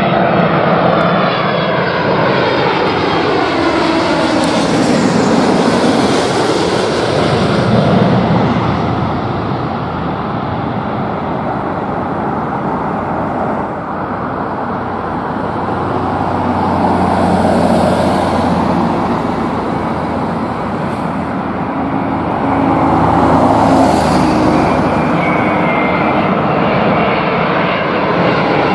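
Jet airliners on final approach passing low overhead. A Boeing 777-200ER's engines sweep past with a falling pitch at the start. A Boeing 787-8 then draws nearer, growing louder, and passes overhead near the end with its pitch falling again.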